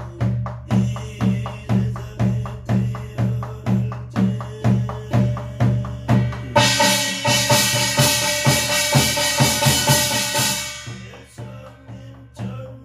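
Korean shaman's barrel drum (buk) beaten in a steady ritual rhythm, about two strokes a second. About six and a half seconds in, a bright metallic ringing swells in over the beats for about four seconds, then fades, and the plain drumbeat resumes near the end.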